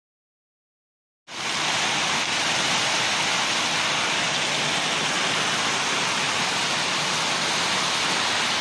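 Heavy rain pouring down: a dense, steady hiss that starts abruptly about a second in.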